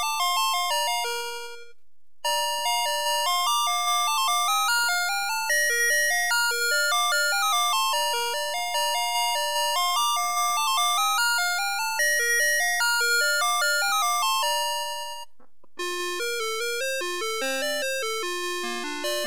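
Electronic beeping melody from a Navystar Press 'N Go fire truck toy's sound chip: quick tunes of short tones that each die away fast. There is a brief pause about two seconds in and another about fifteen seconds in.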